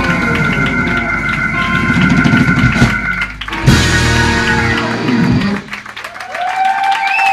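Blues-rock band playing live with electric guitar and drum kit, landing on a final loud hit just after a short break and letting it ring out. The music stops about five and a half seconds in, and the audience starts to cheer.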